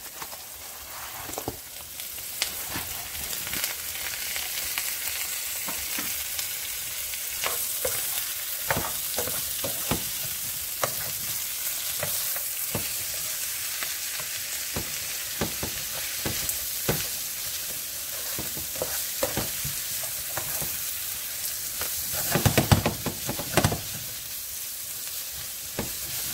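Chicken strips and turkey bacon sizzling in hot oil in a skillet with vegetables, with a utensil knocking and scraping the pan now and then. The stirring gets louder and busier for a couple of seconds about 22 seconds in.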